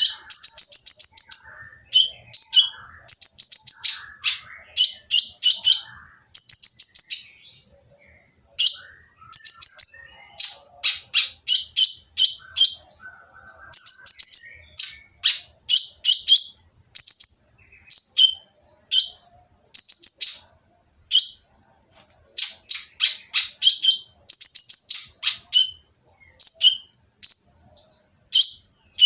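Kolibri ninja sunbird singing a harsh, busy stream of rapid high-pitched chirps and short trills with only brief pauses: the noisy song kept to goad quiet sunbirds into answering.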